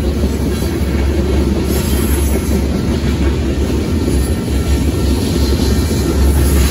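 Covered hopper cars of a long freight grain train rolling past, a steady low rumble of steel wheels on the rails.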